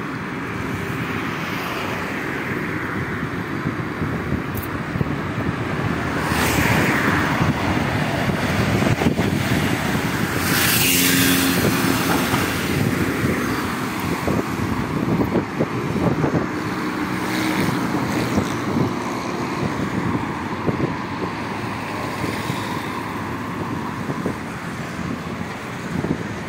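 Road traffic passing on a busy city street, heard from a moving rider, with wind noise on the microphone. Vehicles pass close by about six seconds in and again about ten seconds in.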